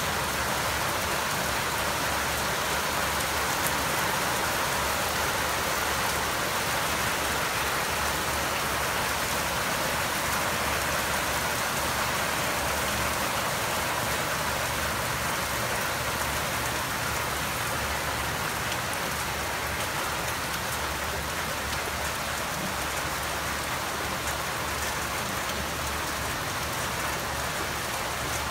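Steady rain from a summer thunderstorm falling and hitting surfaces: an even hiss with scattered sharper drop ticks, easing slightly toward the end.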